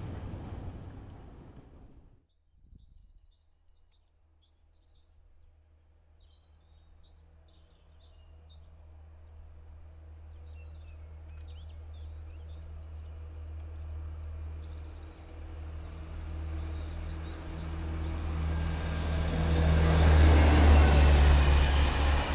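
Green SNCF Infra diesel locomotive hauling ballast hopper wagons approaches and passes. Its low engine drone builds slowly and is loudest about twenty seconds in, as the wagons start rolling by. Birds chirp during the approach, and at the very start the sound of an earlier train fades out.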